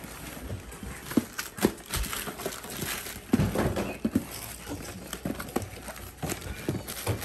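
Small cardboard product boxes being set down and shuffled into a large cardboard shipping carton: irregular knocks and taps on cardboard, with a light rustle of the bubble wrap lining.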